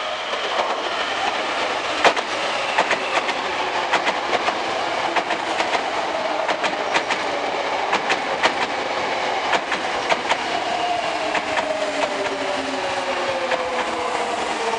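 Hankyu 8300 series electric train slowing into a station, its wheels clicking over rail joints at an uneven rhythm. From about halfway through, the Toyo Denki VVVF inverter and traction motors whine in tones that fall steadily in pitch as the train brakes.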